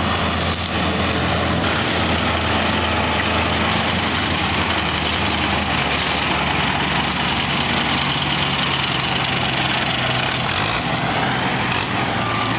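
Belarus 510 tractor's diesel engine running steadily under load as it hauls a heavily loaded sugarcane trolley. The engine note shifts slightly about halfway through.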